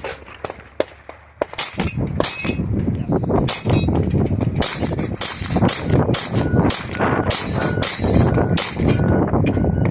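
A string of pistol shots, about two a second, starting about a second and a half in, each hit followed by the bright clang and ring of a steel plate being struck and knocked down.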